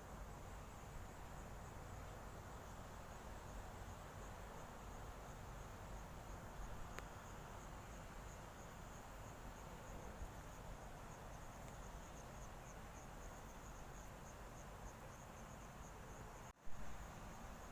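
Insects trilling steadily at a high pitch, the trill pulsing evenly in the second half, over a faint low background rumble. Near the end the sound drops out for an instant and comes back with a short click, the loudest moment.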